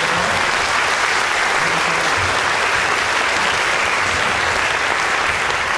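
Audience applauding steadily in a large hall at the end of a lecture.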